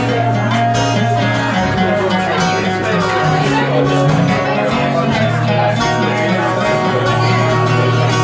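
Two guitars, an acoustic and an archtop, played live through a PA: a busy picked passage over steady low notes that shift every second or two.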